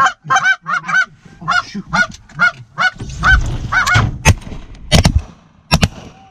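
Rapid, loud goose honking, then a quick volley of shotgun shots at geese flying over the decoys, starting about four seconds in.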